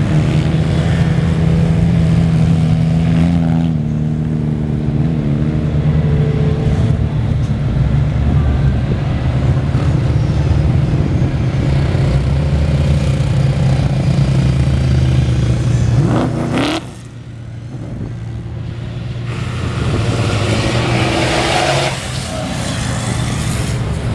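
Engines of off-road race vehicles (4x4s, a quad and a truck) revving and accelerating past on a dirt track, one after another. About two-thirds of the way through a rising rev cuts off into a brief lull, then engines build up again.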